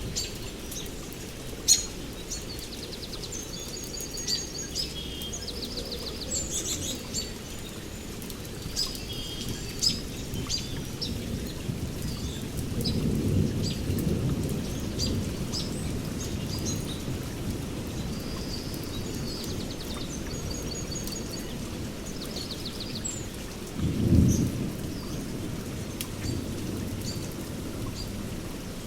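Heavy rain in a forest, with small birds chirping and trilling over it. A low rumble swells about halfway through, and a short, loud low rumble comes near the end.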